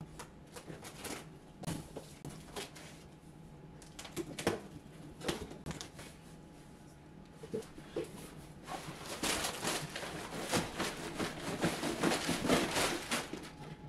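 A cardboard shipping box being cut open and unpacked: scattered taps, scrapes and rustles at first. From about nine seconds in comes a dense crinkling rustle of plastic-bagged clothing as the box is tipped out.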